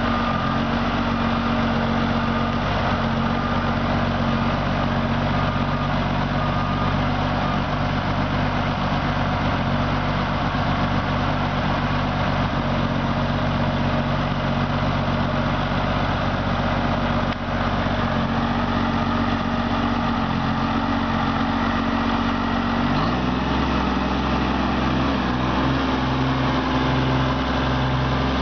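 1986 Versatile 876 four-wheel-drive tractor's Cummins diesel engine running steadily at low speed. The engine note changes abruptly about 23 seconds in.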